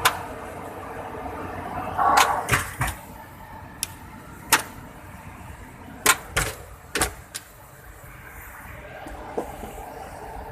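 A series of about ten sharp knocks and clicks, irregularly spaced and some in quick clusters, over a steady background rumble.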